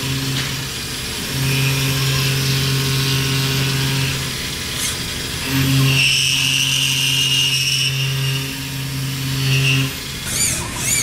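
A machine tool cutting a crankshaft's crankpin: a steady motor hum that breaks off and resumes several times, with a higher whine from the cut for a couple of seconds past the middle.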